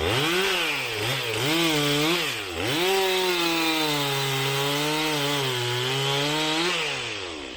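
Two-stroke chainsaw cutting wood. The revs rise and fall a few times, dip briefly to near idle, then hold high and steady through the cut before dropping back off near the end.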